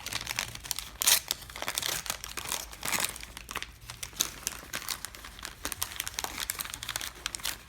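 Packaging around a boxed replica wand being crinkled and torn open by hand, in an irregular run of crackles with louder rips about a second in and again near three seconds.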